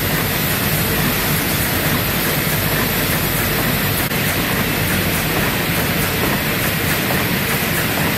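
Automated minifigure assembly machinery running, a steady mechanical clatter with many small rapid clicks as the carriers index and the grippers work.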